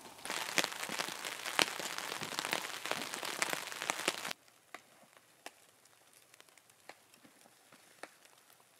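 Rain falling on a camping tarp: a dense, close hiss of many small drop-ticks. About four seconds in it cuts off abruptly to a much quieter spatter of scattered single drops.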